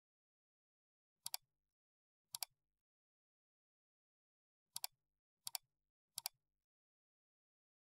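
Five computer mouse clicks spread over about five seconds, each a quick double tick of button press and release.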